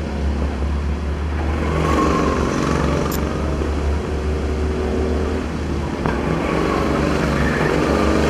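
Go-kart engines running on the track, their pitch climbing as karts accelerate, about two seconds in and again near the end, over a steady low rumble.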